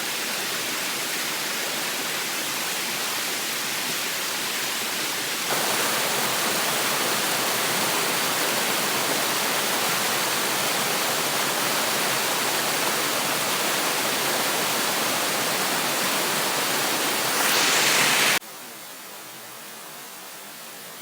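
Waterfall, a steady rush of falling water. It jumps louder about five seconds in and drops to a quieter rush near the end.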